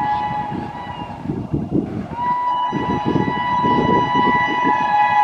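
WAP7 electric locomotive's horn sounding shrilly in two long blasts: the first ends about a second in, the second starts about two seconds in and is still going at the end. Low rumbling runs underneath.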